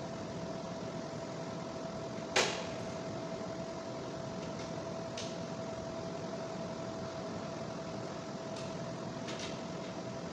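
Sharp snap of hand tools on wiring at an electrical breaker panel about two seconds in, followed by a few light clicks, over a steady room hum with a faint high whine.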